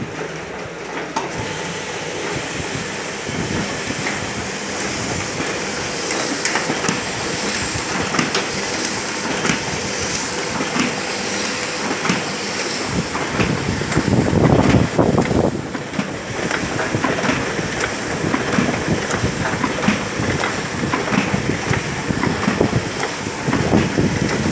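Hamada E47NP offset printing press running, a steady mechanical clatter and hiss full of rapid clicks from its moving parts. It grows louder for a couple of seconds about midway.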